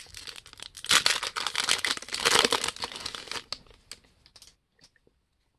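Foil wrapper of a 2009 Upper Deck Signature Stars card pack being crinkled and torn open for about three and a half seconds, followed by a few faint ticks.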